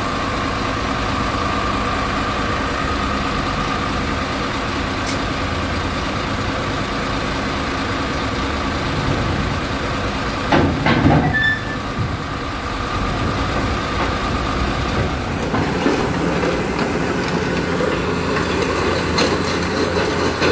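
Crawler excavator's engine running steadily under load as the machine tracks off a lowbed trailer, with a steady whine over it for much of the time. About ten and a half seconds in comes a short burst of heavy clanks and knocks from the steel tracks and trailer deck.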